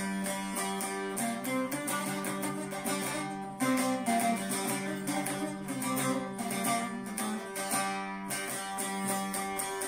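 Bağlama (long-necked Turkish saz) played solo with a plectrum: a quick run of picked notes over a steady drone, an instrumental interlude of a Turkish folk song.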